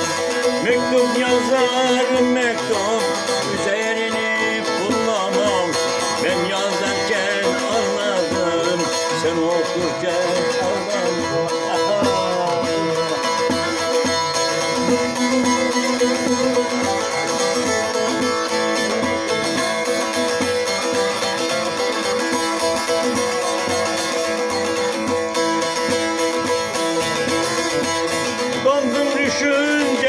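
Bağlama (long-necked Turkish saz) played solo, a plucked folk-song melody over steadily ringing drone strings. A man's singing voice comes in just before the end.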